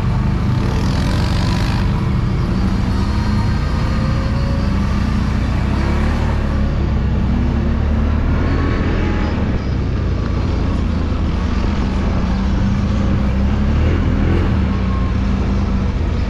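CFMoto CForce 1000 ATV engine running steadily under way, its pitch rising and falling a few times as the throttle changes.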